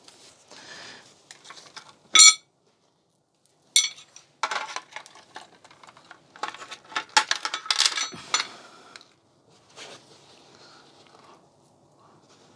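Small hard objects being handled and knocked together. One sharp metallic clink rings out about two seconds in, another strike comes near four seconds, then a run of rattling clatter and clicks, fading to faint rustling near the end.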